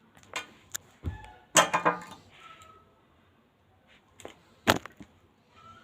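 Sharp clicks and snaps of pliers working the end of a thin electric cable, stripping its insulation: a few single snaps, a quick cluster about a second and a half in, and two more near the end.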